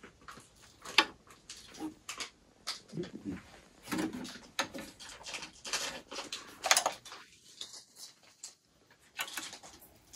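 Scattered small clicks and knocks of a hand working a Yamaha turntable's tonearm and controls, the sharpest about a second in and another near seven seconds.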